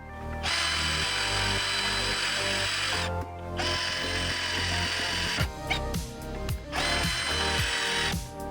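INGCO 12 V cordless drill running at low speed in gear 1, drilling through iron, with a steady motor whine. The motor stops briefly about three seconds in and again near the end, and a run of clicks comes from the bit about halfway through.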